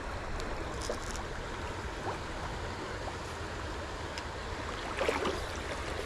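Shallow river running over stones in a steady rush. A few light clicks about a second in and a short cluster near the end come from fishing tackle being handled.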